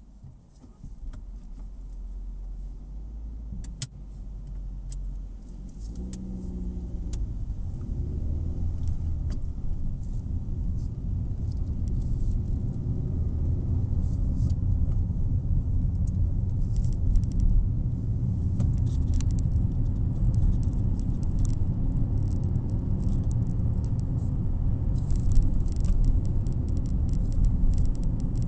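Car interior road noise as the car pulls away from a standstill and drives on: a low engine and tyre rumble that grows louder over the first dozen seconds, with an engine note rising about six seconds in. A sharp click near four seconds and light clicking rattles later on.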